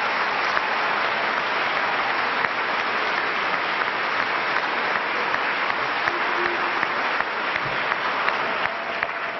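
Banquet audience applauding, a dense steady clapping that begins to ease off near the end.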